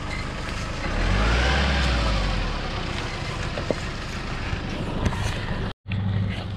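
Nissan Pathfinder four-wheel drive crawling past at close range on a rough bush track, its engine swelling and rising in pitch about a second in, with a few sharp clicks and snaps from the track. A sudden cut near the end switches to the steady hum of another four-wheel drive's engine idling.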